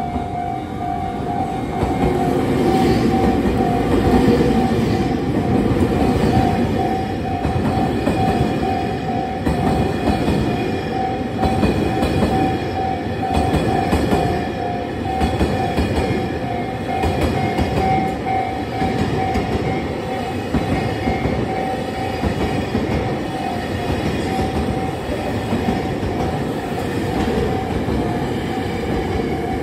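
The Sagawa Super Rail Cargo freight train, a JR Freight M250 series electric multiple unit, passes close by. Its wheels rumble on the rails and the container cars rush past, growing louder about two seconds in. A level-crossing alarm bell keeps ringing in an even, repeating pattern throughout.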